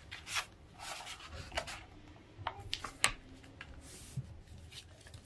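A sheet of paper being folded into thirds and pressed flat by hand: scattered rustles and crinkles, with a few sharp taps.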